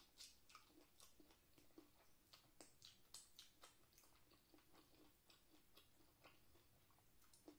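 Quiet, close-up mouth sounds of chewing and smacking while eating seafood by hand: many quick, irregular clicks.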